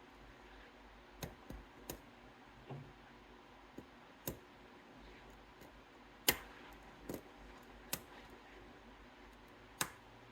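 Pin tumbler lock being single-pin picked: a hook pushing up the spool pins of a six-pin Goal P lock under light tension, giving about ten separate sharp clicks as pins set or fall back down. The loudest click comes a little past six seconds in.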